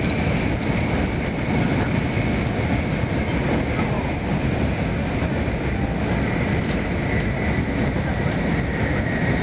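Running noise heard inside an E2-series Tohoku Shinkansen car: a steady, even rumble of the train on the line, with a faint high whine held throughout.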